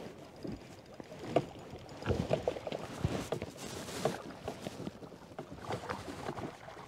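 Irregular water splashes as a hooked kahawai splashes at the surface and a landing net is dipped and swept through the water beside a small boat.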